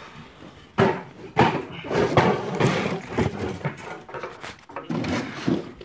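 Homemade wooden V-board decoy stand being flipped open by hand: the boards knock and clatter as they swing out on their bolts. The first sharp knock comes about a second in, and more clattering follows near the end.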